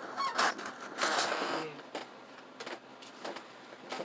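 Rustling and light clicking of plastic puzzle cubes being handled, louder in the first second and a half, then quieter with a few scattered clicks.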